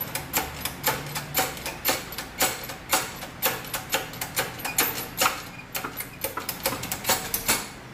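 Shop press being worked as its ram forces the old wheel bearing out of a Toyota Hilux rear axle flange: a quick, uneven series of sharp metallic clicks, about four a second, that stops shortly before the end.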